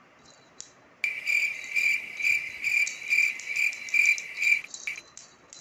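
Cricket chirping: a high, steady trill pulsing about twice a second, which starts about a second in and stops abruptly before the end.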